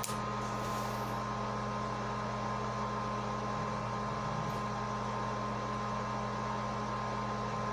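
Steady background hum with an even hiss and a faint high whine, unchanging throughout: the noise of a fan or appliance running in the room.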